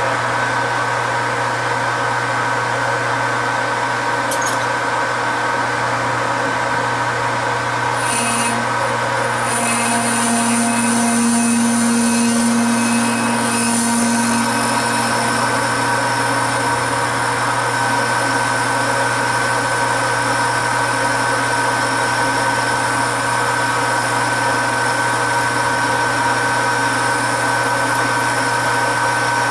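Metal lathe running at low speed while a parting tool slowly cuts off a turned knob: a steady machine whine and hum, with a higher cutting squeal joining about eight seconds in and carrying on.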